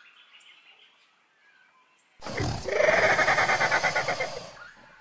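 Dinosaur roar sound effect voiced for a Herrerasaurus: one long rasping roar with a rapid flutter. It starts about two seconds in and fades out over about two and a half seconds.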